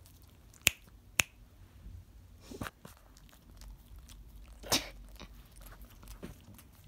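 Pekingese dog chewing and nibbling at its owner's foot through a towel: soft wet mouthing with scattered clicks. The two sharpest clicks come close together about a second in, and another comes near five seconds.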